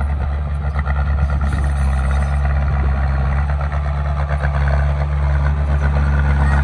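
Heavy construction machine's diesel engine running at a steady speed.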